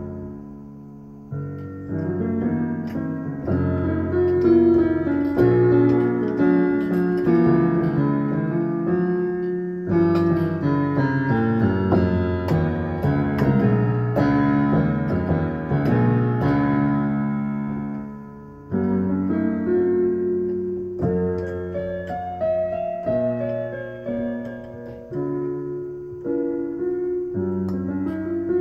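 Piano music: chords and melody notes struck and left to ring out.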